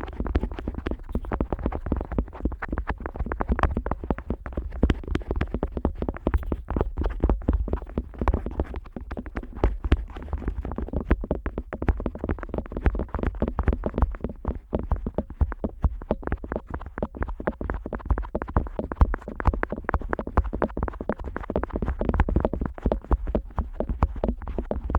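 Plastic otoscope tip rubbing and tapping against the rubber outer ears of a Neumann KU100 dummy-head microphone, heard right at the mic's ear: a dense, uneven run of clicks and scratchy rubbing over a low handling rumble.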